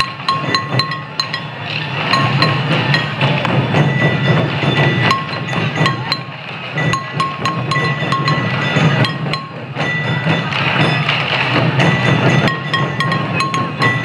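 Sansa odori parade music: waist-worn taiko drums beating, with many sharp clicks and a short high ringing note repeating over them.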